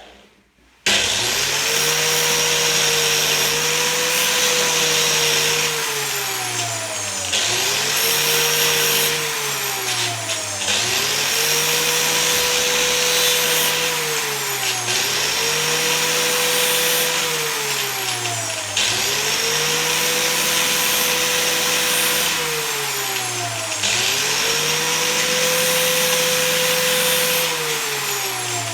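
Angle grinder, turned down to about 4000 rpm, grinding the blade of a pair of pruning shears. It starts about a second in, and its pitch sags and recovers again and again, roughly every four seconds.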